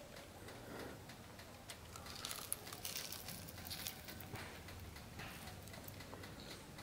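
Faint crunching and crackling as a bite is taken from a crisp deep-fried stuffed maida snack and chewed, the crackles thickest in the middle with one sharper crack.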